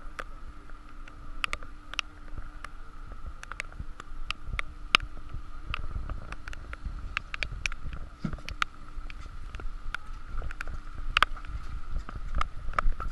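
A boat at sea: a steady hum and low rumble, with irregular sharp clicks and knocks scattered throughout.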